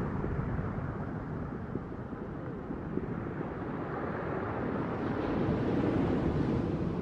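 Low rushing rumble of ocean-style ambient sound with no tune, swelling a little a few seconds in.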